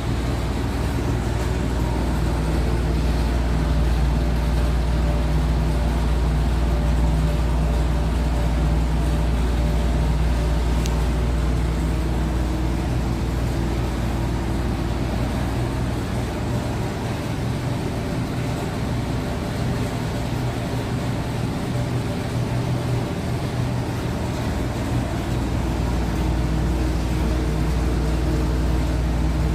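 Chiller air-conditioning unit running with a steady, loud low hum and mechanical drone, the noise that the owner treats as a fault. The deepest part of the hum fades for several seconds in the middle, then comes back.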